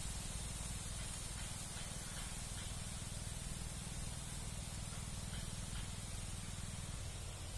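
Steady outdoor background hiss with a constant low rumble, as of water and breeze at a riverbank, with a few faint short high sounds scattered through it.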